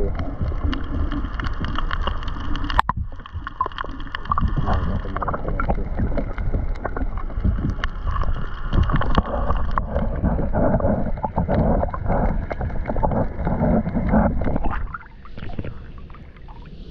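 Kayak paddling: paddle blades dipping and water splashing and gurgling against the hull in an irregular run, with one sharp knock a little under three seconds in. The splashing drops away about two seconds before the end.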